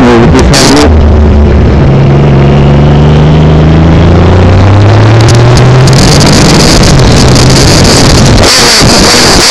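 Triumph Trophy motorcycle engine heard on the move, its steady note climbing in pitch in steps through the middle. Wind buffets the microphone at the start and hisses again near the end.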